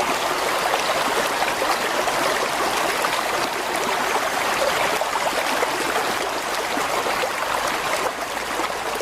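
Mountain stream flowing over rocks, a steady rush of water with splashing and gurgling.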